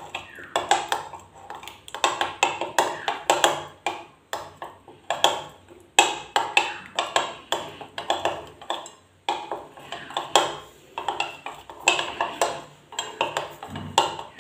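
Metal spoon beating yogurt and spice powders in a bowl, quick repeated strokes scraping and clinking against the bowl's sides.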